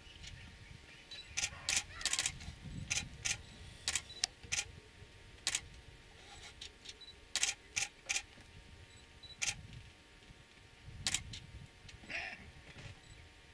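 Camera shutters clicking, single frames and short quick bursts at irregular intervals, over a soft low rumble.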